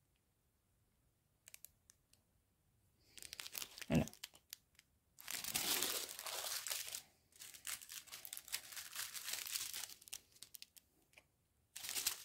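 Small clear plastic bags of round diamond-painting drills crinkling as they are handled and sorted. The crinkling starts about three seconds in, with a single knock about four seconds in.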